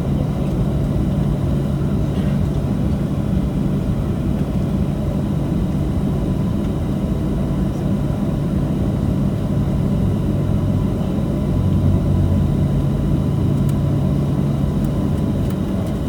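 Steady low rumble of a Boeing 737-700 heard inside the cabin, engines and airframe running evenly as the jet rolls along after landing.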